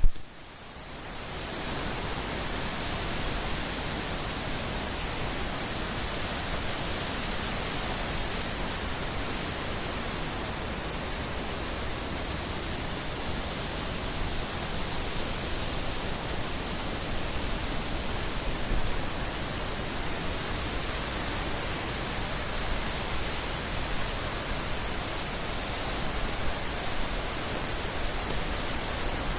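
Rushing water, as of a fast stream or waterfall: a steady, even rush that fades in over the first second or two.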